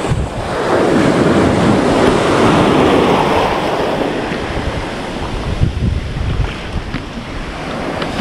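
Surf washing over a shallow coral reef flat: a wave surges in about half a second in and foams past, then eases and builds again near the end. Wind buffets the microphone throughout.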